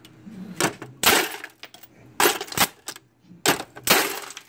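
Nail gun being fired into a radio scanner: a series of about six sharp cracks, several coming in quick pairs, with a hard clatter of the casing.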